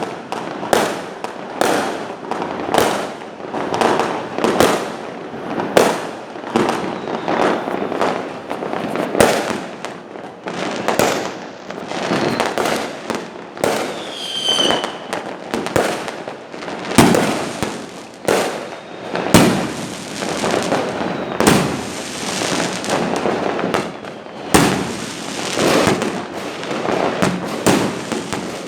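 Fireworks going off in a continuous barrage of bangs, roughly one to two a second, each trailing off in a short rumble. A brief high whistle sounds about halfway through.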